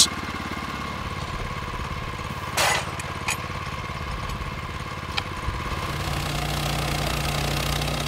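Small petrol engine of a portable band sawmill running steadily, a little louder over the last couple of seconds, with a brief clatter about two and a half seconds in.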